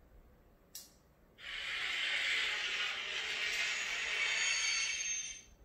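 A click, then a steady hiss lasting about four seconds from the Korbanth SK1 lightsaber's Proffieboard sound card playing through its speaker. It is the saber booting up once its battery is connected and the kill switch set.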